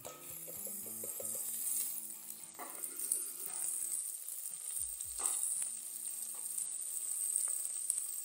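Potato wedges sizzling in hot oil in a metal pan as chopped fresh coriander is tipped onto them, with a steady hiss and a few soft knocks.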